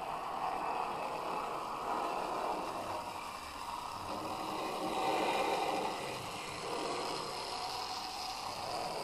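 N-scale model train, a steam-locomotive model hauling freight wagons, running along the track: a steady mechanical noise of wheels on rails and the small electric motor.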